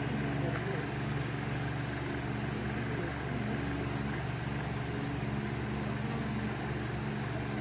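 Steady low mechanical hum of a running motor, even throughout.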